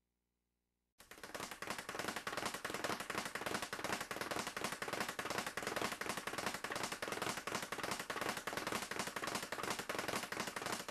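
Speed bag punched in a fast, unbroken rattle as it beats against its rebound platform, starting suddenly about a second in.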